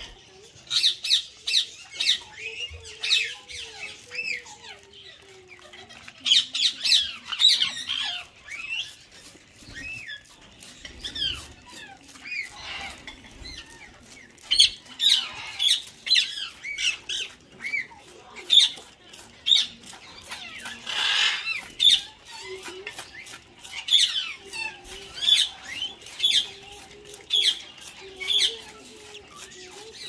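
Indian ringneck parakeets giving short, shrill squawks again and again, singly and in quick runs, with a brief rush of noise a little past the middle.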